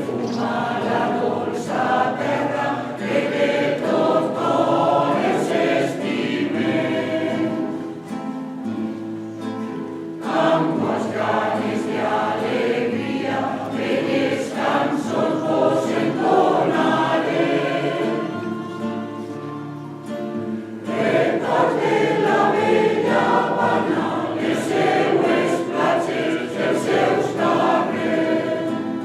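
Choir singing a habanera in sustained phrases. It breathes between phrases about ten and twenty-one seconds in.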